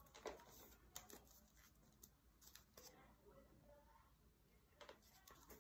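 Faint rustling and crinkling of origami paper being folded and handled, with a few short crackles scattered through.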